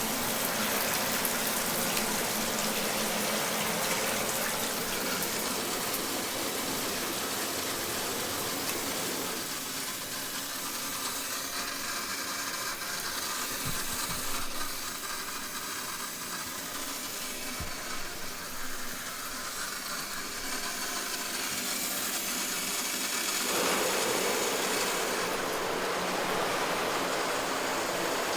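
Shower running, its spray of water hissing steadily; the sound changes character about nine seconds in, turning thinner, and again near the end, turning fuller, with a couple of soft knocks in between.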